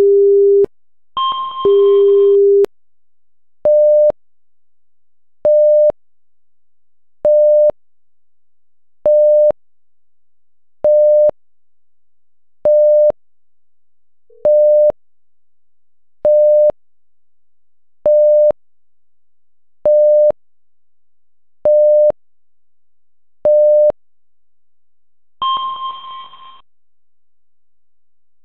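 Electronic alert tones from a seismic monitor display. A short low tone and a chime come first, then a steady run of twelve short beeps about every two seconds, and another chime near the end.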